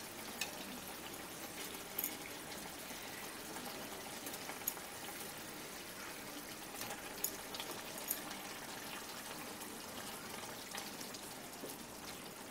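Thin yogurt fish gravy simmering in a kadai: a faint steady bubbling with scattered small pops and spits.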